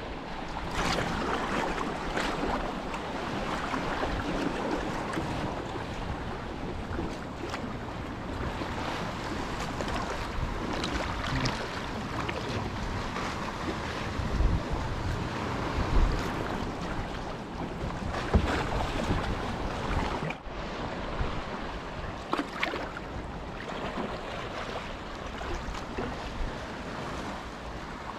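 Kayak paddle strokes splashing in calm sea water, with water lapping against the hull and wind buffeting the microphone. The splashes come at irregular intervals of a few seconds over a steady wash.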